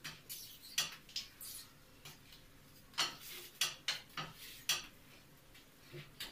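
Wooden spatula scraping and tapping on a flat pan as a garlic paratha is pressed and loosened while it cooks: irregular short scrapes and taps with quiet gaps between them.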